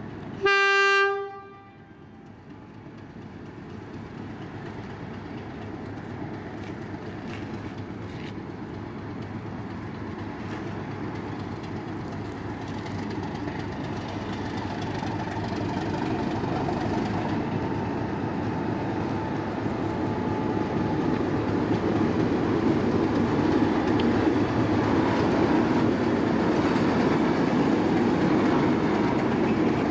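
Queensland Rail diesel locomotive 1620 sounds one short horn blast, then its engine and wheels grow steadily louder as it approaches and rolls past.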